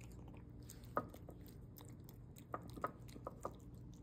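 Domestic cat eating wet pâté food from a dish: faint wet chewing and smacking, with a few sharp clicks, the loudest about a second in, over a steady low hum.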